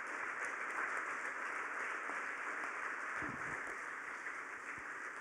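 Auditorium audience applauding, a steady wash of many hands clapping that slowly dies down.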